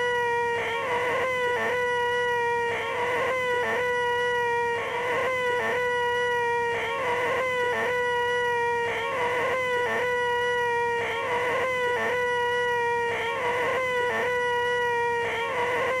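A man's high, nasal 'eeeeh' screech, the 'most annoying sound in the world', looped over and over. Each screech is held at one steady pitch for about a second, with a short break before the next.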